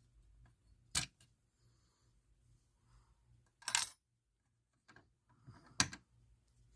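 Batteries being fitted into a battery holder: three short, sharp metallic clicks and clinks, about a second in, near the middle (a brief rattle) and near the end, with quiet between.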